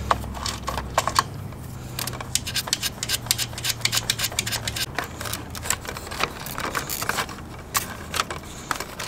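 Hand ratchet clicking in quick, irregular runs as it backs off the small 3/16 nuts holding the heating-element cover on an RV water heater.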